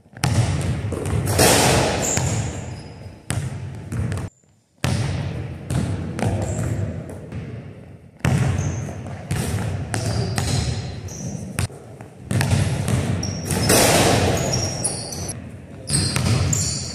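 Basketball bouncing and thudding on a hardwood gym floor, the impacts echoing through the large hall, with short high squeaks between them.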